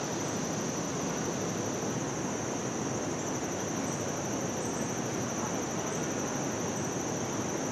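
Steady outdoor background noise: a constant high-pitched buzz over an even, broad hiss, with no distinct events.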